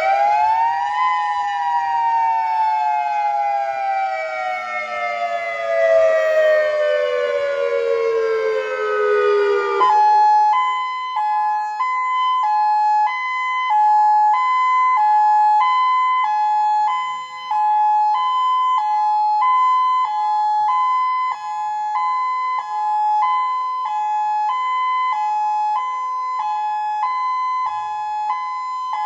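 Federal Signal Modulator 6048 electronic outdoor warning siren finishing its wail tone, a pitch that peaks about a second in and then falls slowly. About ten seconds in it switches to its hi-lo tone: two steady pitches alternating about every half second.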